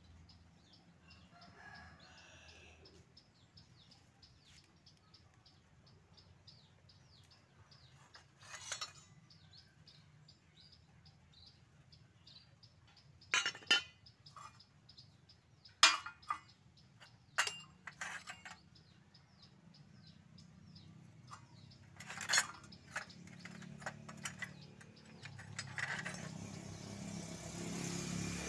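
Pieces of scrap steel being handled, with several sharp metal clanks and knocks that ring briefly. Behind them, faint birds chirp and a rooster crows faintly near the start. Near the end an engine grows louder.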